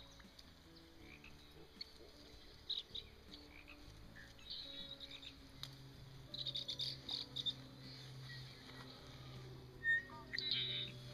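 Frogs croaking around a pond in a steady low chorus, with bursts of high chirping from birds or insects over it. A sharp knock about ten seconds in is the loudest sound.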